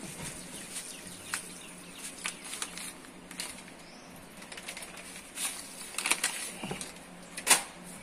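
Plastic detergent sachet crinkling and rustling in scattered short bursts with light taps, as detergent powder is poured into a tub of water; the loudest crinkle comes near the end.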